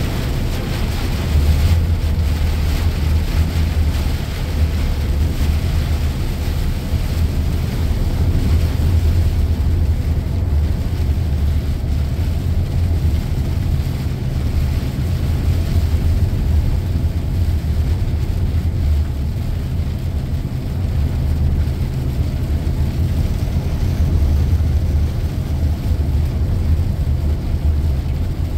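Steady low drone of a heavy truck's diesel engine and tyres on a wet road, heard from inside the cab while cruising.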